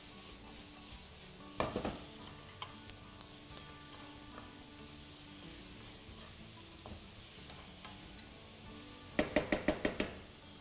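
Steady light sizzle of food frying in a pan. A few clicks come early on, and near the end there is a quick run of about seven sharp knocks.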